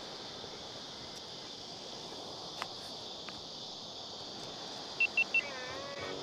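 Three quick, identical electronic beeps about five seconds in, the loudest thing here, followed by a short falling tone, over a steady high hiss with two faint ticks earlier on.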